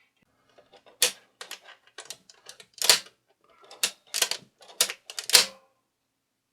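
About a dozen sharp, irregular clicks and clacks of small metal parts being handled while the record player's changer mechanism is cleaned and lubricated, the loudest about three and five seconds in.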